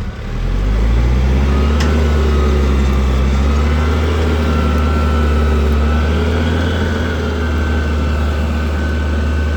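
A motor vehicle's engine picks up revs and grows louder in the first second, then runs steadily, with a faint whine above it.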